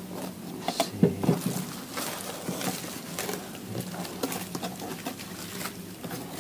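Cardboard box and bubble-wrap packaging being handled: irregular rustles, taps and clicks as the box is opened and the wrapped reel lifted out, the loudest about a second in.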